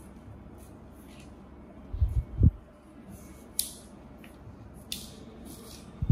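Handling sounds from a small play tent's plastic-pipe frame and fabric cover being tied together with elastic cord: two dull knocks about two seconds in, short scraping rustles around the middle, and a louder thump at the very end.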